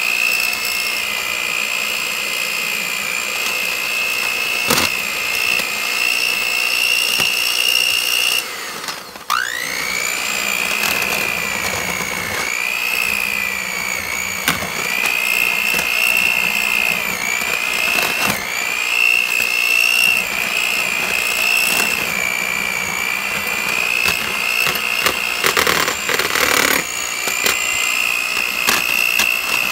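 Electric hand mixer running with its beaters in boiled chicken breasts, shredding the meat; a steady high motor whine that dips in pitch now and then as the beaters bog down. About a third of the way in it stops for under a second and spins back up, and a few sharp clicks sound over the whine.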